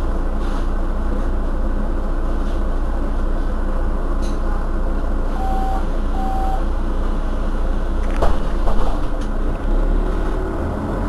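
Mercedes-Benz Citaro Facelift city bus engine running steadily, with two short electronic beeps a little past halfway and a couple of knocks about eight seconds in.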